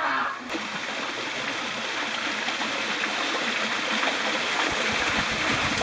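Steady rush of a mountain stream's running water.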